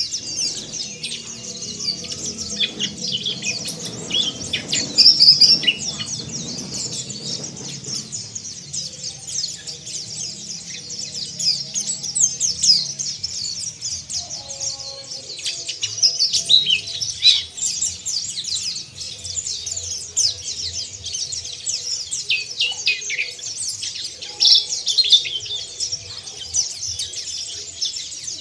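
White-eyes (pleci, Zosterops) twittering in a rough, rapid chatter (ngeriwik): a dense, unbroken run of high, quick chirps and short sweeps, many overlapping.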